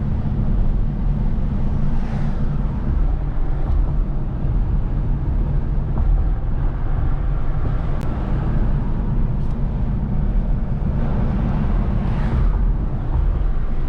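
Steady low rumble of road and engine noise inside a moving vehicle, with two brief swells of louder noise, about two seconds in and again near the end.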